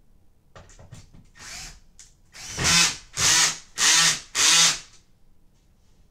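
Cordless drill driving a wood screw through a wooden bed slat into the frame: a few light short runs, then four loud bursts of the motor about half a second apart, stopping about five seconds in.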